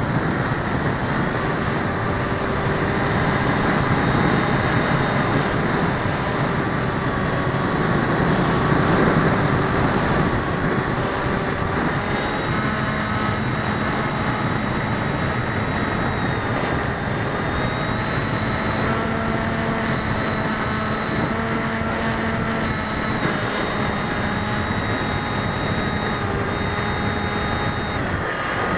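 Electric motors and unbalanced propellers of an FPV radio-controlled model, heard through an onboard keychain camera's microphone. The motors whine in several steady tones that drift up and down in pitch with the throttle, over a dense rush of wind and propeller wash.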